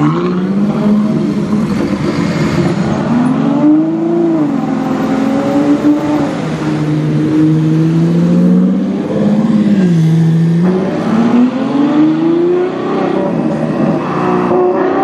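Ferrari FF's 6.3-litre V12 revving up and dropping back several times, its exhaust note rising and falling.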